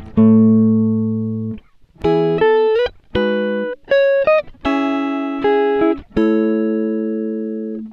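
Background music: a plucked guitar playing chords and short phrases, each note ringing out and fading, with a few notes sliding up in pitch.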